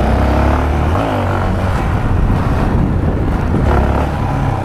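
Motorcycle engine running as it is ridden, its pitch rising and falling, over a steady rush of road and wind noise.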